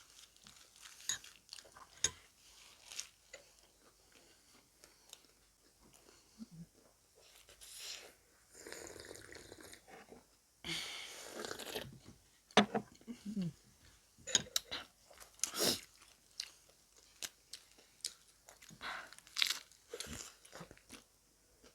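Close-miked chewing and biting of chole bhature: crackly bites of crisp fried bhatura bread and soft, wet chewing, in irregular bursts with a few longer crunchy stretches midway.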